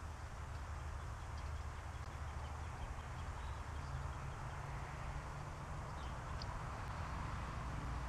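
Outdoor ambience: a steady low rumble with a few faint, short bird chirps high above it, the clearest two a little past the middle.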